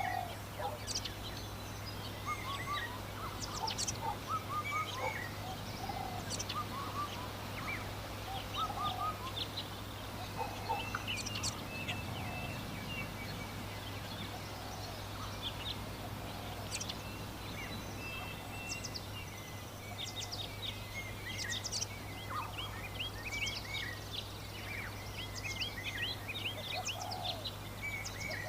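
Many small birds chirping and twittering in quick short notes throughout, with scattered lower clucking calls from domestic fowl, over a steady low hum.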